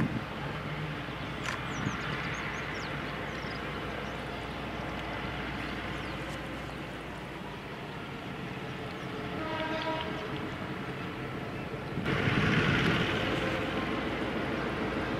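Diesel locomotive running as it pulls slowly away with its train. About ten seconds in it gives a short horn blast. Near the end the sound gets louder, with a rushing noise over the engine.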